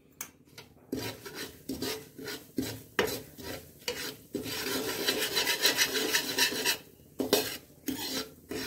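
Perforated metal spatula scraping and stirring thick spice masala around a kadhai, with repeated rasping strokes against the pan and a few seconds of continuous scraping in the middle.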